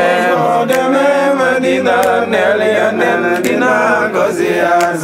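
Music: a male singer holds a drawn-out devotional chant over an instrumental backing, with a few light percussion hits.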